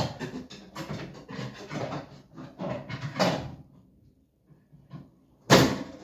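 A tool scraping and knocking about inside the plastic spin-dryer tub of a twin-tub washing machine, working at a sock jammed beneath the spin basket. Irregular scrapes and knocks run for about three seconds, then stop, then one sharp, loud knock comes near the end.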